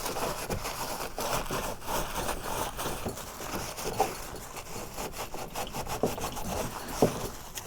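Toothbrush scrubbing inside a kayak rudder steering handle to clean out dirt, a fast run of scratchy brushing strokes with a couple of small knocks.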